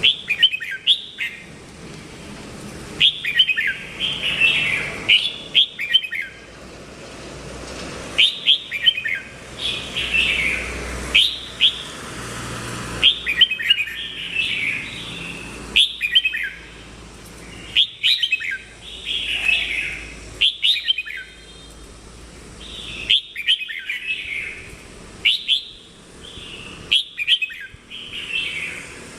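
Red-whiskered bulbul singing: short, bright, warbled phrases repeated every second or two.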